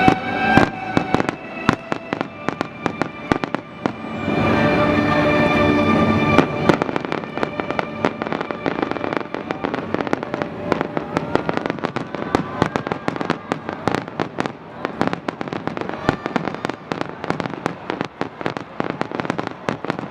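Fireworks going off in a rapid, dense barrage of bangs and crackles, many reports a second. Orchestral music plays beneath, plainly for about the first six seconds and only faintly after.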